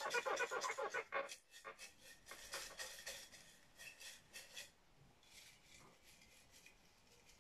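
Folded paper slips rattling inside a ceramic mug as it is shaken hard for about the first second and a half, then more lightly. Near the end only a faint rustle of fingers rummaging among the papers.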